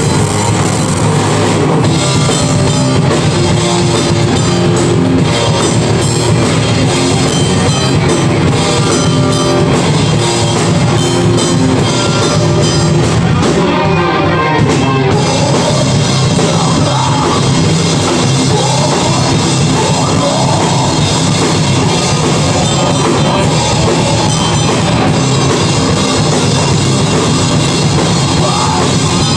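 Heavy metal band playing live: distorted electric guitar over a drum kit with constant cymbals. The cymbals drop out for a moment about fourteen seconds in.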